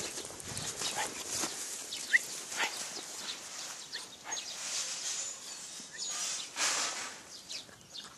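Hound puppies tugging and chewing at a dead hare on grass: irregular rustling and scuffling, with small puppy noises.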